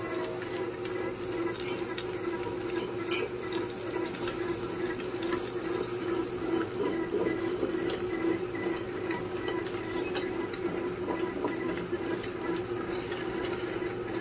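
Prestige vertical wet grinder running steadily: a constant motor hum under the wet churning of its stone rollers turning batter in the stainless steel drum, with water poured into the drum about halfway through.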